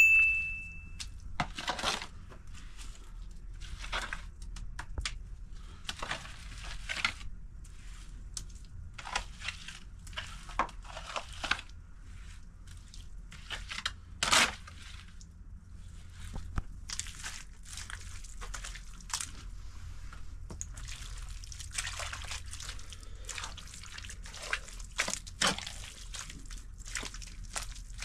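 Wet straw-and-mud plaster (kahgel) being worked by hand: irregular sloshing and scraping strokes over a steady low hum.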